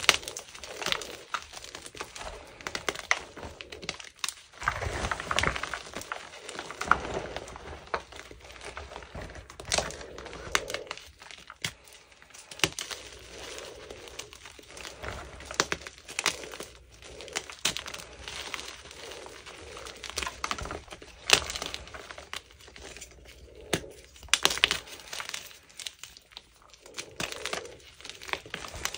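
Hands squeezing and crumbling chunks of gym chalk: irregular crunching and crackling, with sharp snaps as pieces break apart and powder shifts between the fingers.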